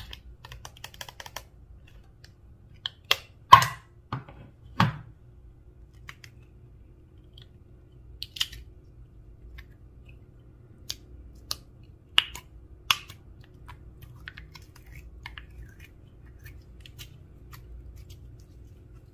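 Small plastic makeup items and clear slime being handled, making sparse sharp clicks and taps. A rapid patter of tiny clicks comes at the start, the loudest clicks come about three to five seconds in, and scattered lighter clicks follow.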